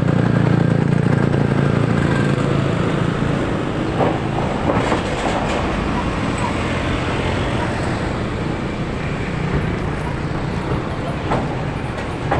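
Heavy road traffic going by close up: diesel trucks, including a concrete mixer truck and a container truck, and motorcycles running past. A steady low engine drone is loudest in the first few seconds and eases off a little, with a few sharp knocks around four and five seconds in.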